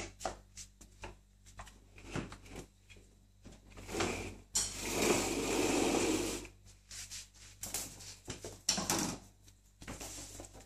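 A cat and a ferret scuffling on a tiled floor: a run of quick clicks and knocks, with a longer stretch of scraping noise from about four to six and a half seconds in.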